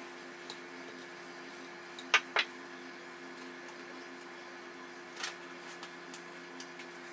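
Wooden rolling pin set down on a kitchen worktop: two sharp knocks about two seconds in, with a few lighter taps from dough being rolled and cut, over a steady low hum.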